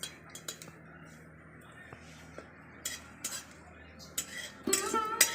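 Metal cooking utensils clinking against a pot, a few separate knocks spread out. Plucked-string music comes in near the end.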